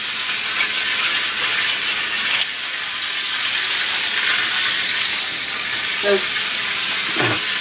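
Hornby Dublo three-rail model train running round metal track, a steady hissing rattle of its electric motor and wheels. A short knock comes near the end.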